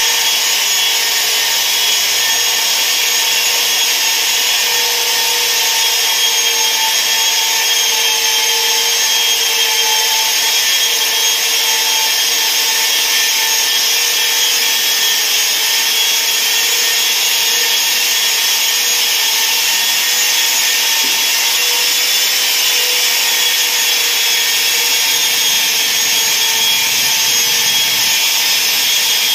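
Two handheld electric polishers running together, their pads working a wet marble tabletop: a steady motor whine of several tones over an even hiss from the pads on the stone.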